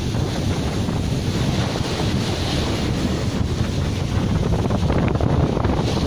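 Wind buffeting the microphone in a steady low rumble, over the wash of small surf breaking on a sandy shore.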